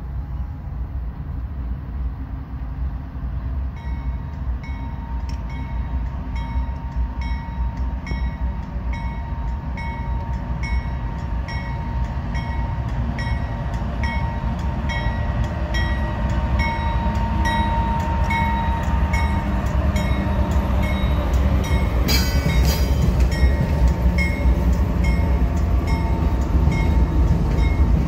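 Norfolk Southern freight train approaching and passing, led by GE diesel-electric locomotives NS 4117 (AC44C6M) and NS 8109 (ES44AC). The engines' rumble grows steadily louder as the train comes close, with a regular ringing beat about twice a second and a short hiss about three-quarters of the way through.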